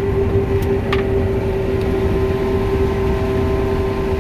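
Combine running steadily while harvesting corn: a constant whine over a low engine rumble, with a couple of faint clicks about a second in.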